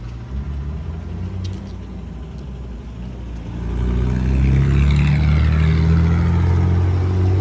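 A motor vehicle's engine running close by, getting louder about three and a half seconds in as it comes near and staying loud to the end.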